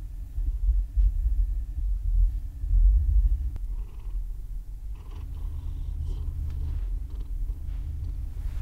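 Large long-haired cat purring contentedly, a steady pulsing low rumble close to the microphone. Soft rustling joins in from about halfway.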